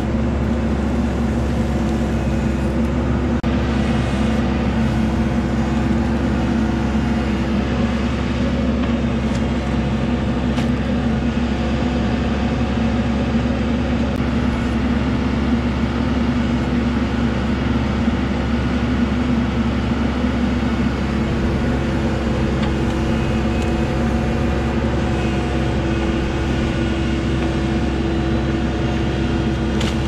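The 55 hp Kukje diesel engine of a TYM T574 tractor running steadily at a set speed while it powers the BY85 backhoe digging muck from a ditch.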